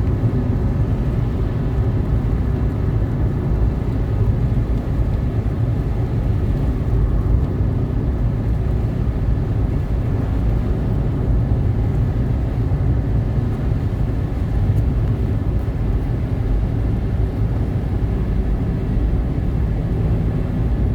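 Steady low rumble of a car in very heavy rain, with no let-up.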